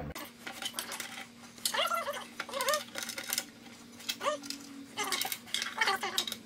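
Small metal screws clicking and clinking as they are handled and set by hand into pre-drilled holes in a spline jig's fence, in a string of light, irregular clicks.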